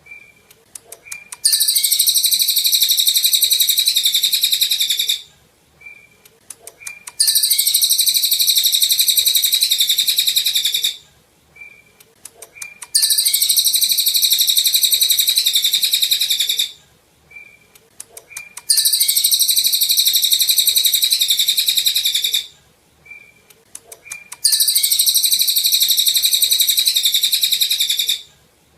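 Cililin songbird singing: long, rapid, high-pitched song phrases of about four seconds each, coming back every six seconds or so, with a few short chirps in the pauses between.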